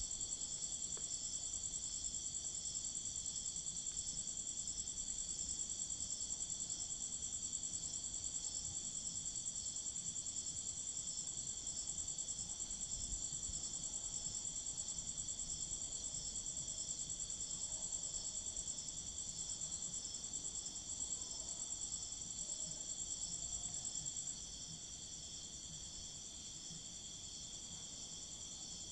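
Crickets trilling steadily, several high continuous trills layered together; the loudest trill fades and the sound grows somewhat quieter over the last few seconds.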